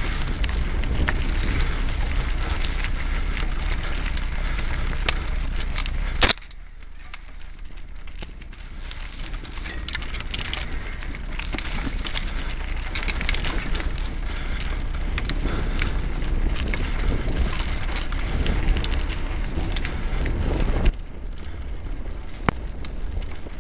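Mountain bike riding over a rough dirt singletrack: a continuous rattle and rumble of tyres, frame and chain with many small clicks and knocks. About six seconds in there is a sharp knock and the noise drops for a few seconds, and it drops again near the end.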